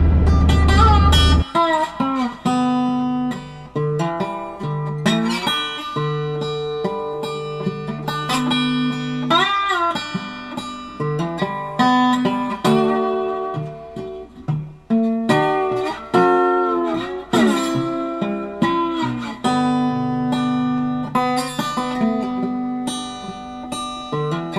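Background music of a picked acoustic guitar in a bluesy style, with notes that slide up and down in pitch a few times. A low vehicle rumble sits under it for about the first second and a half, then drops away and leaves the guitar alone.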